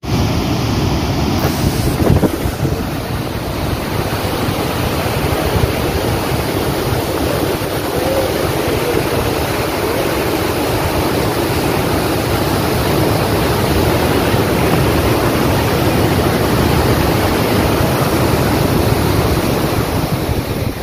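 Muddy floodwater rushing down the stepped stone overflow weir of a lake in flood: loud, steady pouring water.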